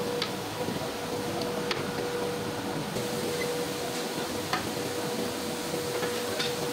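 Steady machine hum of a foundry floor, with a faint steady tone running through it, and a few short sharp clinks as metal mould boxes are handled, about a second and a half in and again near the middle.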